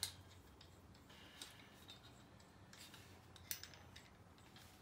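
A few sharp metal clicks and light rattles as the joints and fittings of a scissor-style microphone boom arm are handled and fitted together. The strongest clicks come right at the start and about three and a half seconds in, against near silence.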